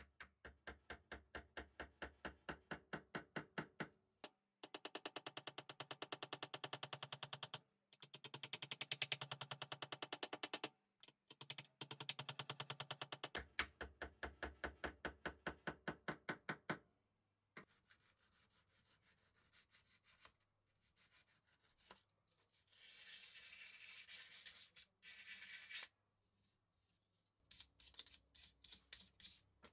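Small metal hammer tapping rapidly on the domed head of a slotted steel screw held in an aluminium channel, in runs of several seconds with brief pauses, metal on metal. About two-thirds through the tapping stops and gives way to quieter rubbing and scraping, and a short run of taps comes back near the end.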